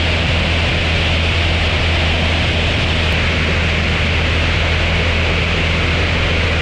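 Steady rush of wind over a camera mounted on a light aircraft's wing in flight, with the low, even drone of its propeller engine underneath.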